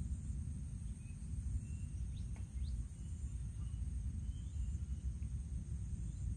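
Steady high-pitched insect drone with a few short, faint bird chirps, over a low, noisy rumble.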